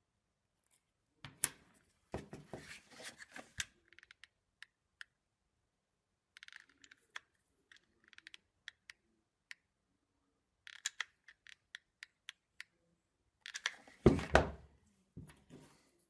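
Small wooden parts being handled and pressed together during hot-glue assembly: scattered clicks and light taps in several clusters, with a louder knock about fourteen seconds in.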